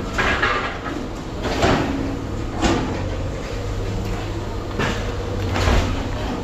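Heavy scrap-handling machinery running with a steady low hum, over which metal clanks and bangs sound about five times at irregular intervals.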